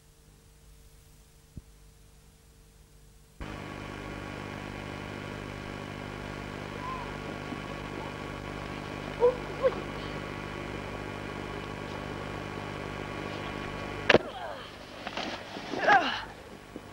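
Steady hiss and hum of an old camcorder recording, which jumps up suddenly a few seconds in. Faint short calls come midway; near the end a sharp knock, brief calls and rustling as the camera is handled.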